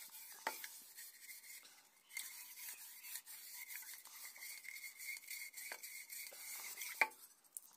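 Metal-mesh dish scrubber on a stick scrubbing the inside of a copper bottle: a faint, scratchy rubbing, with a light knock near the end.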